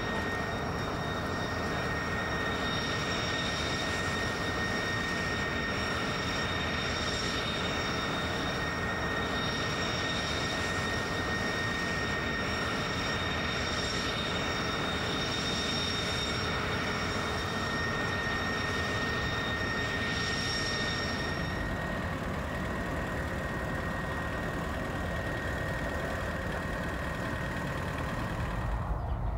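Canadair T-33 jet trainer's Rolls-Royce Nene turbojet running on the ground: a steady rush of jet noise with a high, even whine. The upper part of the whine fades about three-quarters of the way through while the rush continues.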